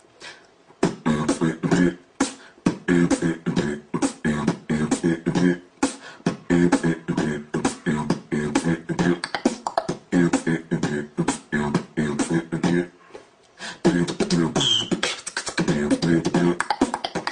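Beatboxing: a fast, steady rhythm of vocal kick and snare hits over a pitched, humming bass line, with a short break about two-thirds of the way through.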